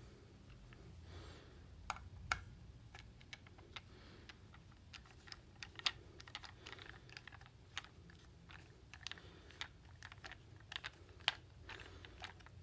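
Faint, irregular light clicks and taps of a small screwdriver and plastic parts, a few a second, as the screwed battery cover of an Amazon Echo Button is taken off.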